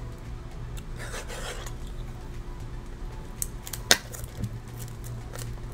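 Plastic-shrink-wrapped cardboard card box being handled: fingers rubbing and picking at the wrap, with a rustle about a second in and a few sharp clicks near the end, one much louder than the rest.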